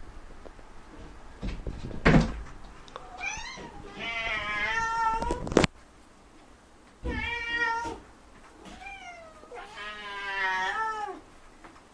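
Domestic cat meowing repeatedly, several drawn-out wavering calls, demanding its food before mealtime. A loud bang about two seconds in and a sharp knock a few seconds later, the loudest sounds here.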